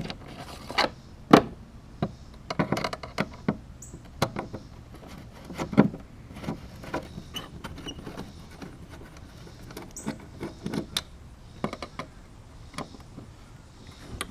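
Scattered clicks, clinks and knocks of small metal hardware and tools being handled while a gear track is taken off a plastic kayak hull, two knocks louder than the rest.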